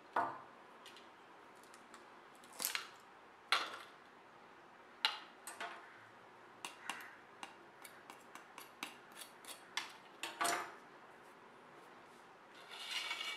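Burnt coconut shell being cracked and peeled off by hand, brittle charred pieces snapping and dropping onto a metal plate in scattered clicks and knocks. A longer scraping rustle comes near the end.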